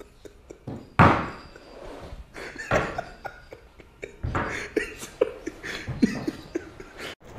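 Several sharp bangs with long fading, echoing tails: the loudest about a second in, more near three and four seconds in.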